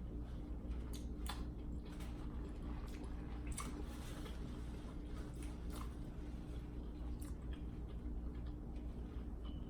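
Close-up chewing and eating sounds: wet mouth noises with a handful of short sharp clicks spread through, over a steady low hum.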